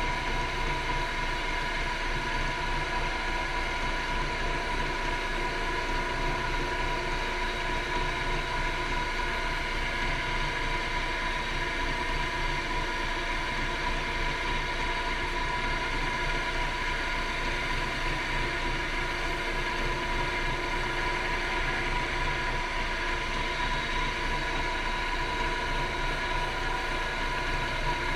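Wood lathe running steadily with a pen blank spinning between centres, a cloth pressed against the blank to work in polishing paste. A steady hum with a high, even whine over it.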